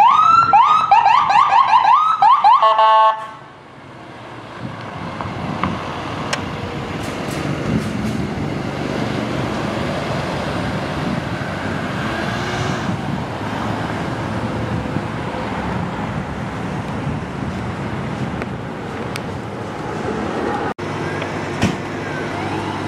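Ambulance siren in a fast yelp, rapid rising sweeps, for about three seconds, then cut off abruptly. Steady road and engine noise from traffic follows.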